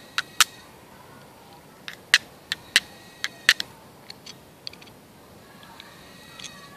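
Steel striker being struck against a flint stone to throw sparks onto char cloth: a run of sharp, irregular clicks, some with a brief metallic ring, the clearest in the first three and a half seconds and fainter ones after.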